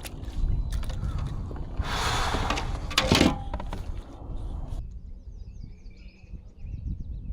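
Handling noise on a kayak: rustling, a burst of noise and a sharp knock. About two-thirds of the way through it cuts off and gives way to birds chirping over a low rumble.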